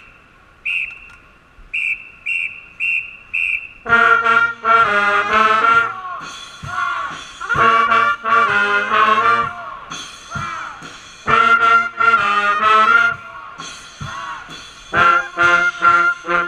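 Hockey pep band brass, trumpets and trombones, playing a loud tune in short, punchy phrases of full chords, starting about four seconds in. It is preceded by a quick run of short, high notes at one pitch.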